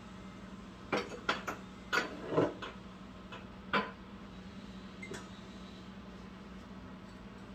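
Glass storage jars being picked up and set down on a kitchen shelf, giving a quick series of clinks and knocks in the first four seconds and one lighter knock about five seconds in.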